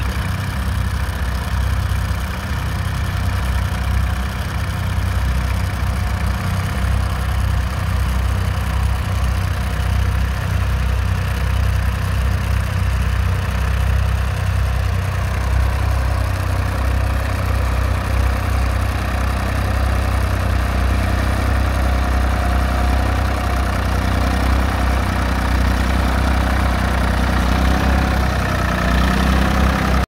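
Nuffield 3/42 tractor's BMC three-cylinder diesel engine running steadily under load while pulling a plough, a low, even engine note.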